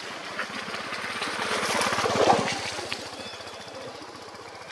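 A small motor engine passes by, running with a rapid, even pulse, growing louder to a peak a little past the middle and then fading away.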